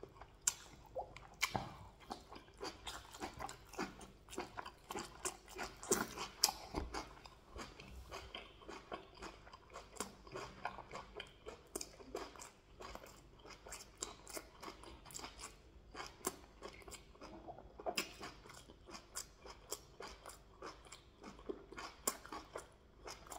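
A person chewing a mouthful of rice with waterleaf soup and meat close to the microphone, with many sharp, irregular wet mouth clicks and smacks.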